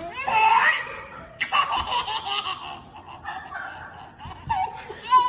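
A baby laughing in a series of high-pitched bursts, loudest in the first couple of seconds.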